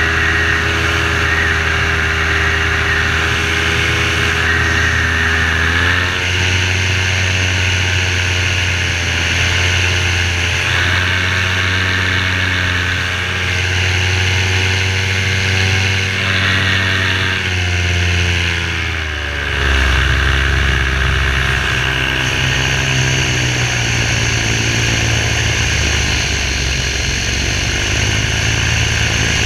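Parajet V3 paramotor's two-stroke engine and propeller running steadily under power. The engine note steps up about six seconds in, then drops sharply as the throttle comes back about two-thirds of the way through and holds at a lower pitch.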